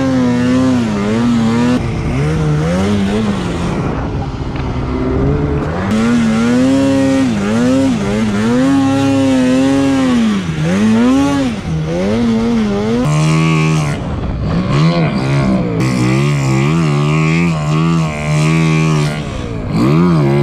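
Snowmobile engine revving up and down again and again as the throttle is worked in deep powder snow. About thirteen seconds in, it settles to a lower, more even pitch with quick wavers.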